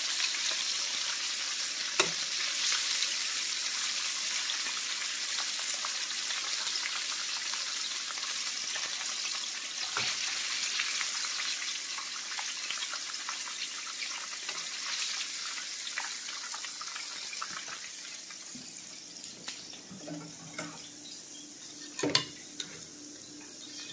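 Battered chicken fingers frying in a pan of hot oil: a steady sizzling hiss that fades over the last several seconds. A few sharp clicks and knocks of metal tongs as pieces are lifted out, the loudest near the end.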